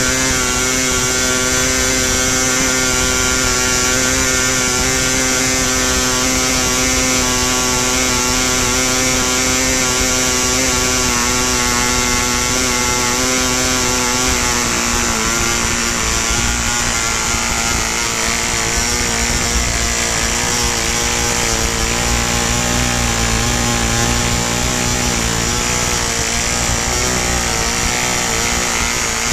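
Early McCoy 35 glow-plug two-stroke model stunt engine, over 60 years old, running steadily on a test stand and swinging its propeller, held back and not pushed hard on fuel with 20% castor. Its high buzzing note drops slightly about halfway through and then wavers a little.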